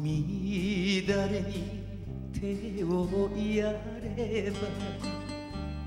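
Live enka performance: a male singer holding long notes with wide vibrato over band accompaniment.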